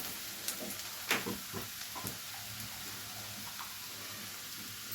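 Browned onions and ginger-garlic paste frying in oil in a pan: a soft, steady sizzle, with a few light spoon knocks in the first two seconds as it is stirred.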